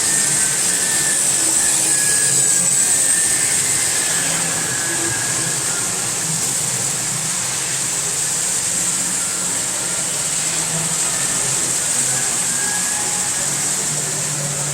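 Model train running on the layout: a steady motor whine and hum that holds level with no distinct clicks.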